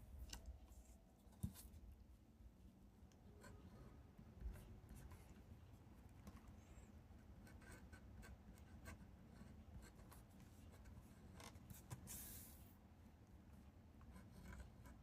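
Faint scratching of a pen on paper as Japanese characters are written in semi-cursive script, with small irregular strokes and ticks and a brief soft rustle about twelve seconds in.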